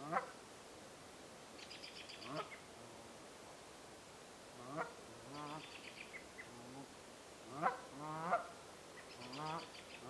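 Canada geese honking: single rising honks every second or two, some in quick strings of short honks. Three times a small bird adds a brief run of rapid high ticking notes.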